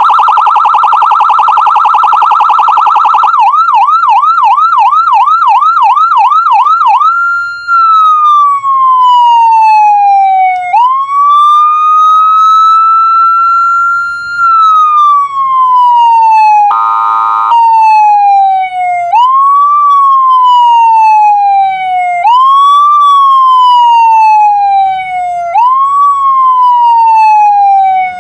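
Tantsiren TS001ANL electronic siren cycling through its tones. It opens with a very fast warble, moves to a yelp at about three sweeps a second, then to slow wail sweeps that rise quickly and fall slowly. A short harsh horn blast cuts in about 17 seconds in, before the wail resumes.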